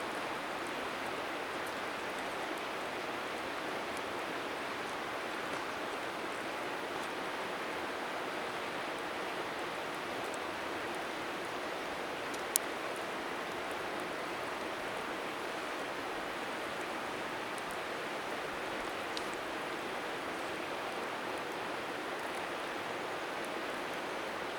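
Steady rush of river water, with scattered faint crackles from a wood bonfire and one sharp pop about halfway through.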